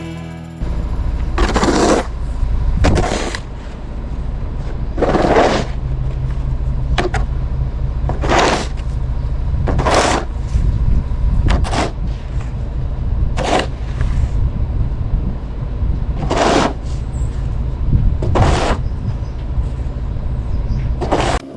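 Pickup truck engine running steadily, with short rushing noise bursts about every one to three seconds.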